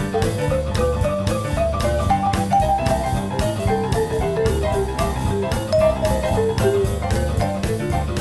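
Instrumental background music: a drum kit keeps a steady beat under a melody of short notes.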